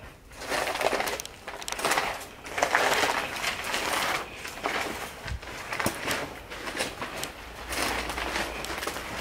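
Footsteps crunching and crackling over debris on a decaying floor, a series of irregular crunches.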